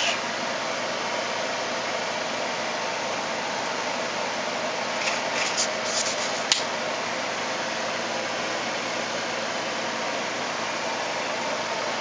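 Steady, even background hiss, with a few brief soft rustles about five to six and a half seconds in.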